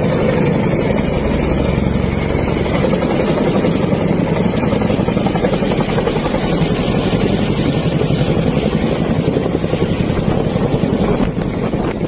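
CH-47 Chinook tandem-rotor helicopter flying low and close, its rotors beating in a fast, steady chop. The sound eases a little near the end as it pulls away.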